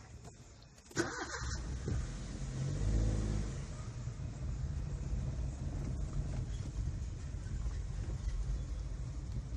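Maruti Suzuki WagonR's engine starting about a second in, rising briefly in speed, then running steadily.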